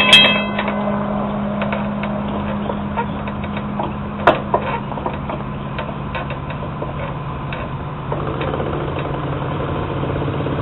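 Railroad crossing bell ringing stops just after the start, once the gate arms are down; then a steady low engine hum with a few faint clicks, one sharper click about four seconds in.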